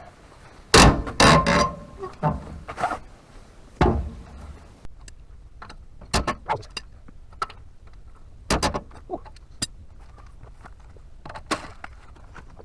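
Irregular metal clanks and knocks from hand tools and wheel nuts as a wheel is unbolted from its hub, with the loudest cluster about a second in.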